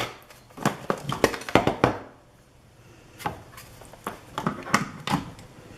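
Plastic clicks and taps as the back cover of an Anesty wireless doorbell push-button is handled and snapped back onto its casing. They come in two clusters of sharp clicks about a second apart.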